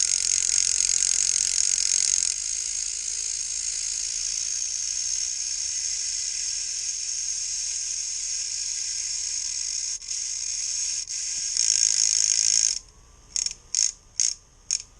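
Dremel rotary tool running at high speed to spin the odometer of a vintage Stewart-Warner speedometer backward, its worm gear removed, so the mileage numbers roll down. The high-pitched whir runs steadily, stops about 13 seconds in, and is followed by four short blips of the tool.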